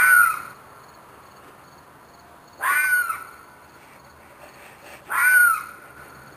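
An animal's screeching, crying scream, called three times about every two and a half seconds; each call is a short, harsh shriek that rises and falls in pitch.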